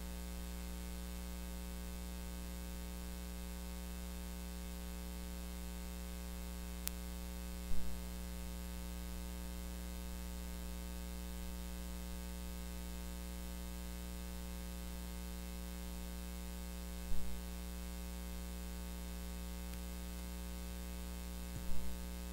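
Steady electrical mains hum with hiss in the sound system. A sharp click comes about seven seconds in, and three brief thumps are spread through the pause.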